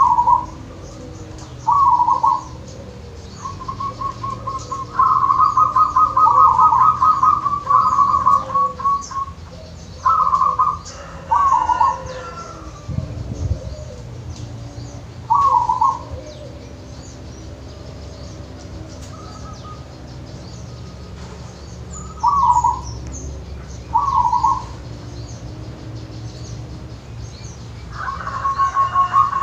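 Local zebra dove (perkutut) singing: short, clipped coos at irregular intervals, with a fast run of repeated notes from about four to nine seconds in and another starting near the end. A brief low rumble comes about thirteen seconds in.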